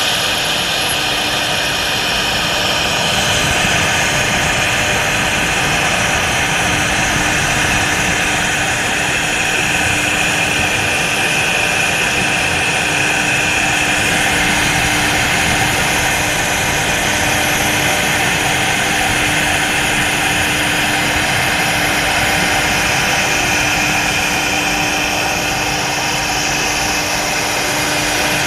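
CNC router's spindle running steadily as it cuts, a constant high-pitched whine over a steady hum.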